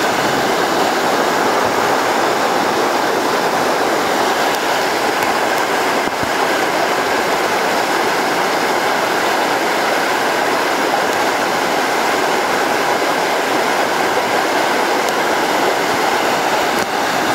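Water pouring over a low river weir: a loud, steady rush of falling water.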